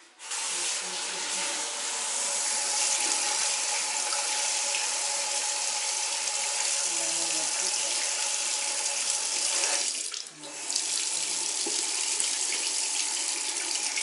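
Water running from a bathroom sink tap, splashing into the basin and over hands held in the stream. The tap comes on suddenly at the start, and the flow dips briefly about ten seconds in before running on steadily.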